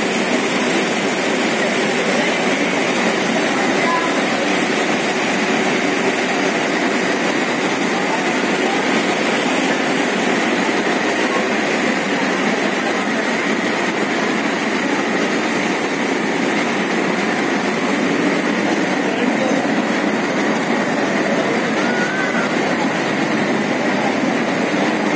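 Tea-processing machinery running: a steady, even mechanical din that holds at the same level throughout.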